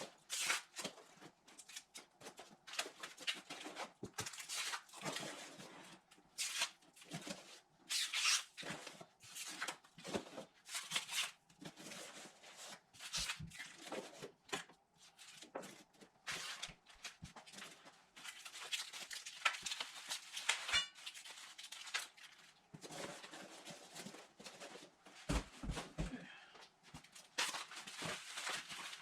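A shipping box being unpacked by hand: packing material rustling, crinkling and tearing in irregular bursts as the contents are dug out.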